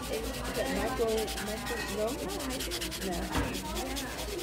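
Sanding buffer block rubbed rapidly back and forth over acrylic nails, an even, scratchy rasp of many quick strokes a second.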